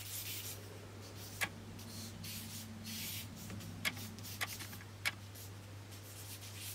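Charcoal stick scratching and rubbing across drawing paper in short strokes, with a few sharp ticks as it touches down, over a steady low hum.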